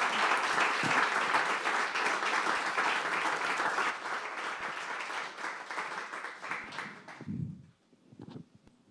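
Audience applauding, loud at first, then thinning out and dying away about seven seconds in.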